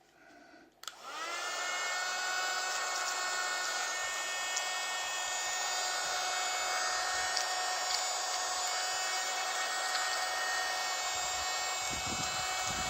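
A mini USB vacuum cleaner is switched on with a click about a second in. Its small motor spins up with a rising whine, then runs steadily with a high whine. A few low thumps come near the end.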